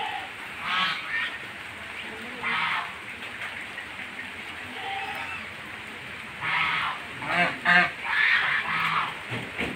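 Domestic geese honking in short harsh calls, once about a second in and again near three seconds, then a quick run of calls from about six and a half to nine seconds in.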